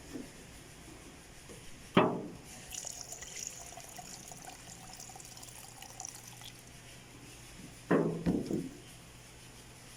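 Lacquer thinner being poured into a container of sanding sealer, a faint trickle of liquid, with a loud clunk of the container about two seconds in and a cluster of knocks near the end.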